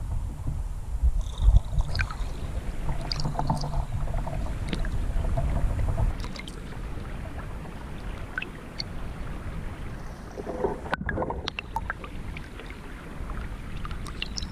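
Shallow stream water heard through a submerged camera: a low rumble of current with scattered small clicks and ticks. It is quieter from about six seconds in.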